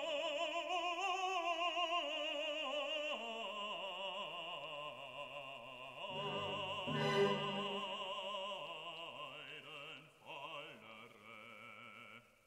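Operatic singing: a voice holding long notes with wide vibrato, stepping down in pitch, growing softer near the end.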